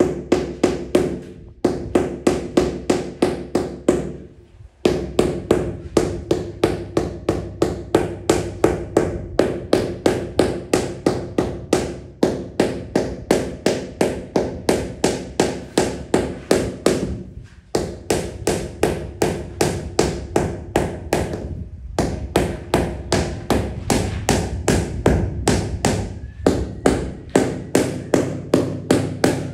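Rubber mallet tapping a large ceramic floor tile in quick, steady runs of about four strikes a second, with brief pauses between runs, bedding the tile down into its mortar bed.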